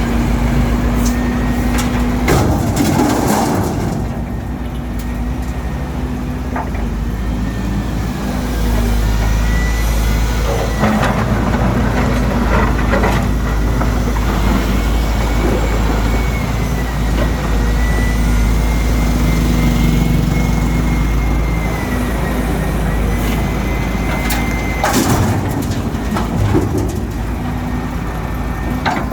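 Volvo EC210 hydraulic excavator working: its diesel engine running steadily under load with a wavering high whine, and a few sharp cracks and knocks as asphalt is broken up and scraped by the bucket.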